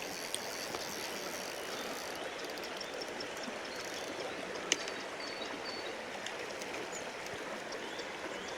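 Fast-flowing river water rushing steadily, with a single sharp click a little past halfway.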